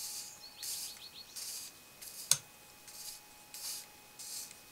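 Hot soldering iron tip wiped across a wet sponge to clean off excess solder, sizzling in short hissy bursts about once every two-thirds of a second. One sharp click about halfway through.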